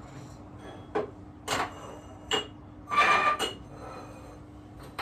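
Drinking glasses and dishes clinking and knocking against each other as they are handled and moved about, in about five separate strokes, each with a short ringing tone. The loudest cluster of clinks comes about three seconds in.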